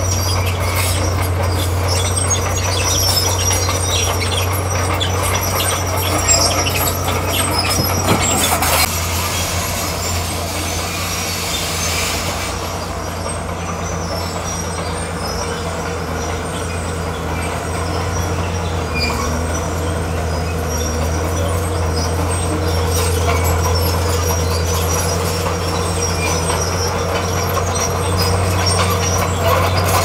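Crawler bulldozer's diesel engine running steadily under load while its steel tracks clank and squeal as it pushes crushed stone.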